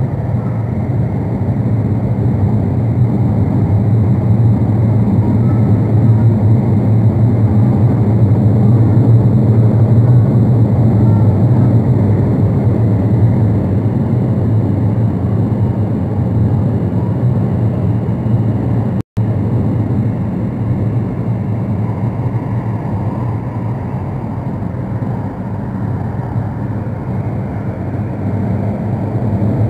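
Santiago Metro AS-14 train running between stations, heard from inside the car: a steady, loud rumble of wheels and motors that swells and eases slightly. The audio cuts out for an instant about two-thirds of the way through.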